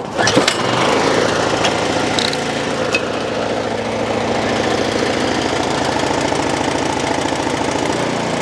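Cub Cadet snowblower's single-cylinder engine running steadily on choke. It keeps running only on choke and dies off it, a sign that the carburetor is still not fuelling it properly.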